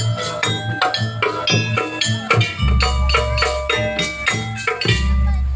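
Instrumental music from a live percussion ensemble: fast, steady struck pitched notes over drums, with a deep low tone coming in about two and a half seconds in and again near the end.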